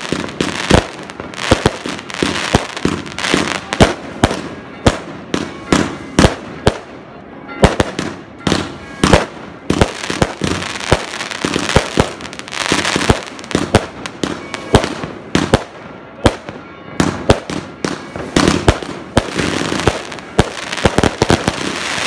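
Fireworks exploding overhead in a rapid, irregular string of sharp bangs, with crackling from glittering bursts between them.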